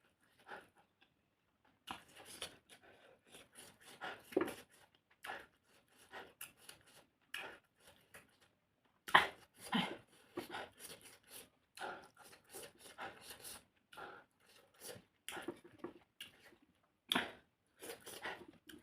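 Close-up mukbang eating sounds: chewing and lip smacking on a mouthful of fish, short wet clicks coming several a second in irregular bursts, loudest about nine seconds in.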